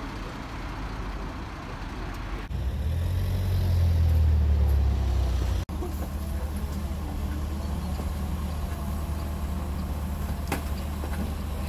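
Low, steady rumble of a motor vehicle's engine with road traffic. It swells louder about two and a half seconds in and drops back abruptly a few seconds later.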